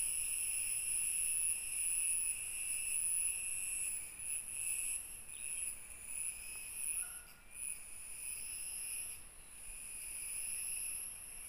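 A chorus of insects shrilling steadily in several high-pitched layers, thinning and flickering for a few seconds in the middle. About seven seconds in there is a short, faint whistle.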